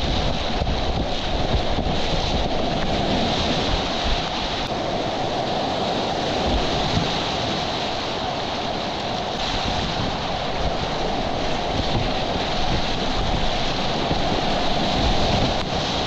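Whitewater rapids rushing steadily, with wind buffeting the microphone.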